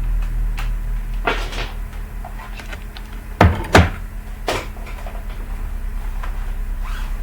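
A few knocks and clicks from handling a plastic laptop during repair, with two louder knocks close together about halfway through, over a steady low electrical hum.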